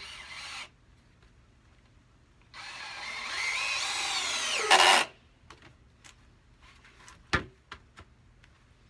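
Power drill running for about two and a half seconds, its motor pitch wavering, ending in a short louder burst; then a few light clicks and a single sharp knock.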